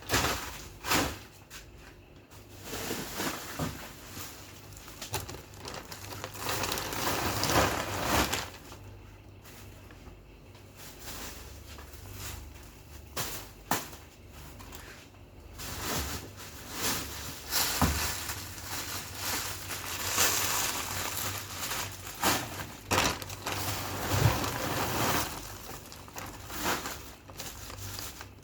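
Plastic bags crinkling and rustling in irregular stretches, with scattered light knocks, as frozen food packs are handled and moved about.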